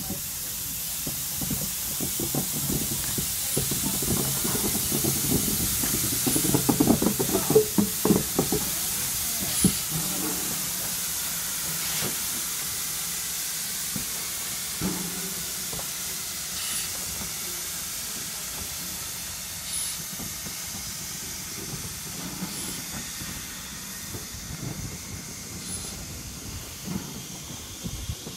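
Ivatt Class 2MT steam tank locomotive moving slowly with its cylinder drain cocks open: a steady hiss of escaping steam, with knocks and clanks from the engine, heaviest about a quarter of the way in.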